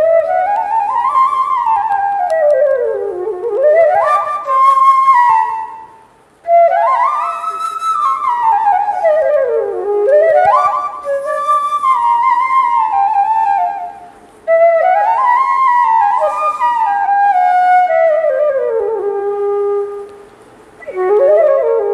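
Bamboo flute (bãshi) playing a slow, sad folk-song melody as a single line. Its long phrases climb and fall with sliding ornaments, and it stops briefly for breath about six, fourteen and twenty seconds in.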